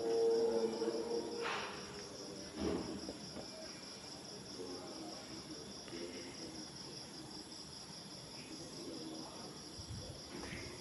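A faint, steady, high-pitched pulsing trill like a chorus of insects, with a couple of soft knocks near the start.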